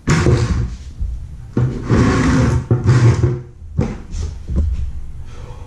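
Handling noise of a white PVC pipe fitting being rubbed and scraped close to the microphone: three long scraping stretches in the first three and a half seconds, then a few light knocks.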